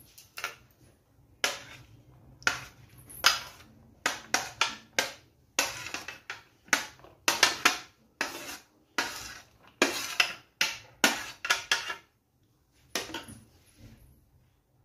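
Chopped onions being tipped and scraped off a plastic tray into a plastic mixing bowl: a run of irregular short knocks and scrapes. They stop about twelve seconds in, with a few fainter ones near the end.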